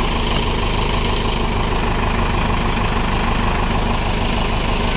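A machine running steadily at an even pitch, heard with the hiss of water sprayed from a hose onto a car.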